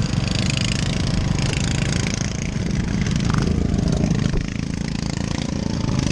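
Racing lawn tractor's small engine running steadily at low speed close to the microphone, dipping slightly in level about four and a half seconds in.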